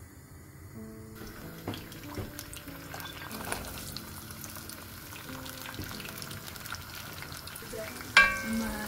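Chopped red onion and spring onion sizzling in hot oil in a wok, with scattered small knocks and a sizzle that sets in about a second in, under background music. Near the end a sharp knock with a brief metallic ring, the loudest sound, as the wooden spoon strikes the pan.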